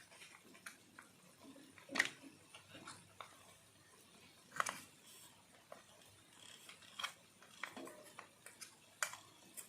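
Faint, scattered clicks and knocks of a spoon scraping ground masala from a mixer jar into the pan of chicken, four or five sharper knocks among lighter taps.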